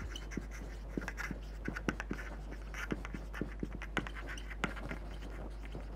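Marker pen writing on a whiteboard: a run of short scratchy strokes and light taps as words are written.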